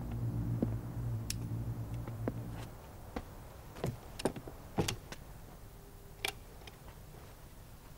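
A low steady hum that stops about a third of the way in, then a handful of short sharp clicks and knocks from a door and keys being handled as a hotel room's entrance door is opened and shut.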